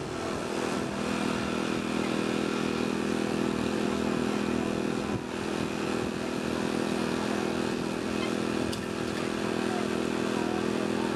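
Portable hydraulic power unit for a rescue tool, its small engine running steadily to drive the tool being worked on a car door.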